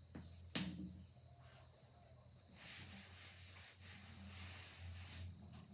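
A steady high-pitched insect chorus over a low hum, with a single sharp tap about half a second in. Rubbing on a chalkboard from about two and a half to five seconds, as the board is wiped.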